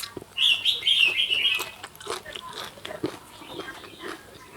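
A bird chirping in a short run of quick high notes, over scattered small clicks and smacking sounds.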